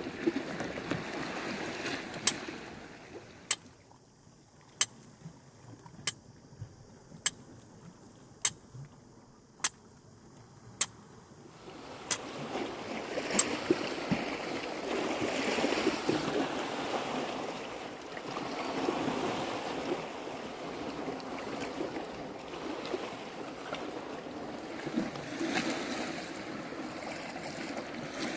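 Flint and steel being struck: about ten sharp clicks roughly a second apart in the first half. Under them is a steady wash of sea surf and wind, which grows louder in the second half.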